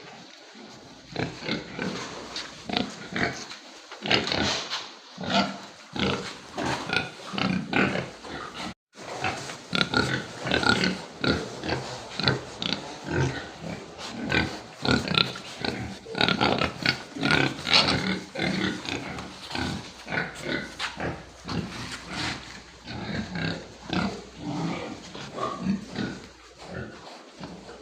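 Pigs making many short calls in quick, irregular succession, with a momentary dropout about nine seconds in.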